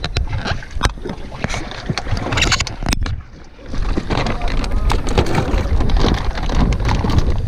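Wind buffeting the microphone in a heavy low rumble, with crinkling of a clear plastic fish weigh bag and handling knocks as bass are put into it. The sound drops away suddenly for about half a second a third of the way in.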